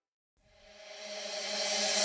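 Background music: silence, then a song's intro fades in about half a second in and swells steadily louder.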